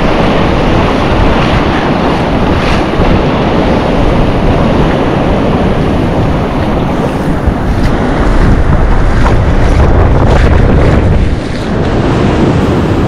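Shallow surf washing over sand, with wind rumbling on the microphone. The noise dips briefly near the end.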